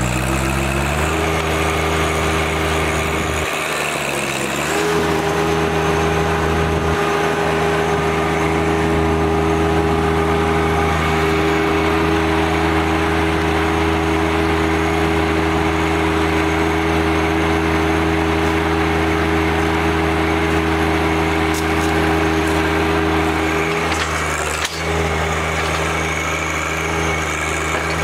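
Compact tractor's engine running steadily while it works a loader-mounted stump puller. Its pitch climbs in the first second, dips and recovers about four seconds in, then holds. Near the end there is a brief break and the engine settles onto a lower note.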